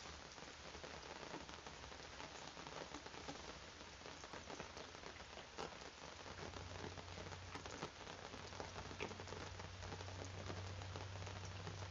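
Steady rain falling, an even hiss with many small drop ticks. A low steady hum comes in about halfway through.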